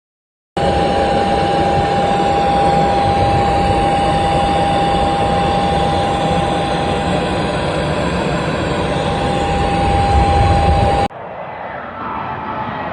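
Air ambulance airplane's engines running loud and steady, a constant whine over the rumble. About eleven seconds in it cuts off suddenly to quieter engine noise.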